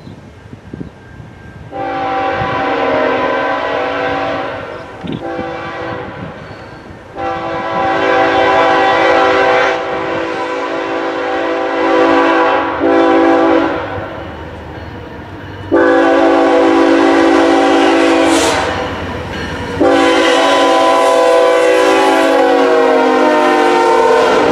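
Lead BNSF diesel locomotive's multi-note air horn sounding several long blasts as the train approaches, getting louder as it nears, with the rumble of the passing train underneath.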